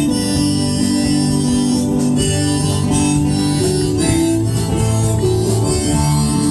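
Live band music: a harmonica playing held notes in an instrumental break, over a steady band accompaniment with guitar.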